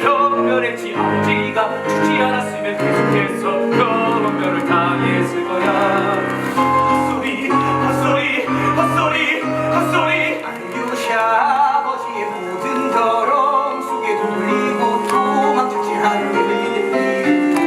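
Musical-theatre singing with vibrato over instrumental accompaniment, performed live on stage.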